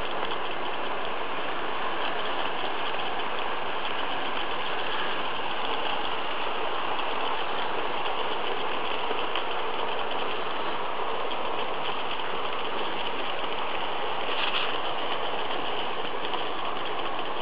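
Märklin model trains running on the layout's track: a steady, even whir of their small electric motors and wheels on the rails, with one brief click near the end.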